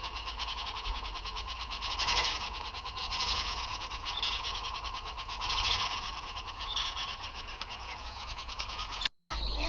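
AI-generated sound effect: a steady scratchy, crackling noise made of many fast tiny ticks. It cuts to a brief silence near the end.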